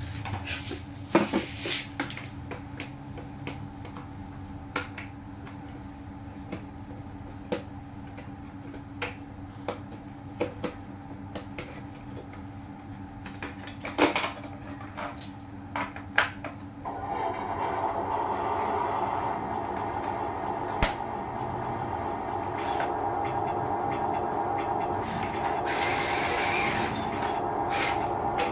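Small electric motors of RC construction models running, with scattered light clicks and knocks. A little past halfway a louder, steady motor whine sets in and keeps going.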